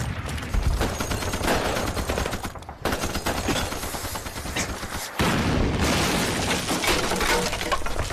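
Battle gunfire: many rapid shots overlapping, dropping out briefly about two and a half and five seconds in.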